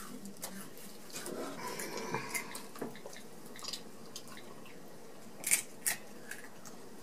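Quiet eating sounds: potato chips being chewed and crunched, with faint small noises and two short sharp crunches or clicks a little over five seconds in.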